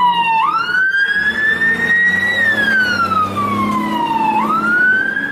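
Fire engine siren wailing. Its single tone sweeps slowly down, jumps quickly back up, climbs a little, then sweeps slowly down again, in about a four-second cycle.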